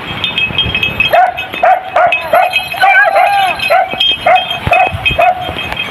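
Hunting dogs giving tongue in a chase: a fast run of short, high yelping barks, about three a second, starting about a second in.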